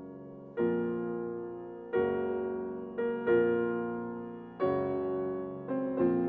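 Background piano music: slow chords struck about once a second or so, each ringing and fading before the next.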